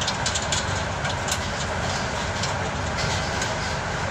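Repaired Electrolux W65EB machine running: a steady low mechanical rumble with irregular light clicking and rattling over it.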